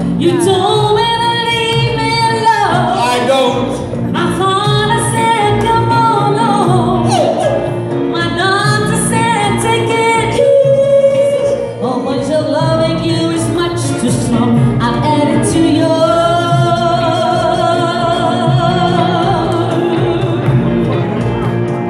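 Live band music, with electric guitars, an acoustic guitar and drums, backing a singer who holds long, wavering notes into a microphone.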